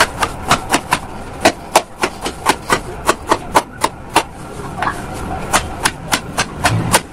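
Kitchen knife making quick slicing cuts into a peeled potato, each stroke coming down onto thin metal rods laid along either side of it on a cutting board: sharp clicks about three or four a second, with a short pause a little past halfway.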